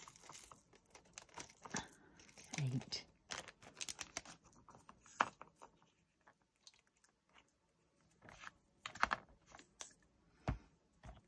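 Small clear plastic baggie crinkling and a little plastic storage pot clicking and tapping in the hands as diamond-painting drills are tipped from the bag into the pot. Irregular light clicks, thinning out midway and picking up again near the end.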